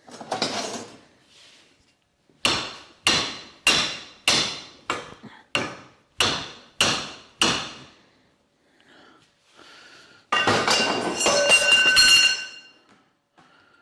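Hammer striking a steel plate, about ten ringing metallic blows roughly two a second, as the heat-warped plate is knocked back square. Near the end comes a couple of seconds of dense metallic clattering and ringing.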